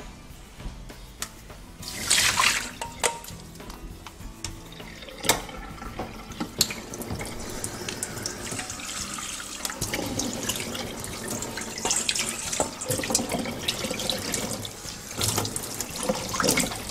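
Water running from a kitchen tap into a stainless-steel sink as soaked quinoa is rinsed in a metal bowl and fine-mesh sieve, with scattered clinks and knocks of the metal bowl; the flow grows steadier and louder in the second half.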